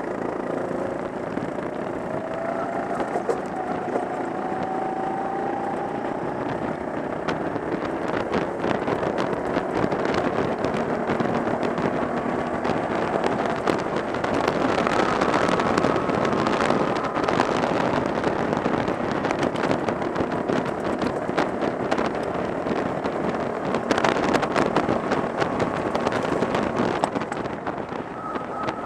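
Go-kart engine running under load, heard from onboard the kart, its pitch rising and falling as it speeds up and slows for the corners, with wind on the microphone and frequent sharp clicks.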